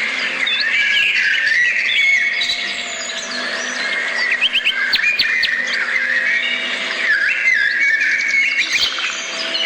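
A chorus of songbirds chirping and whistling, many short overlapping calls at once, with a quick run of sharp high notes about halfway through.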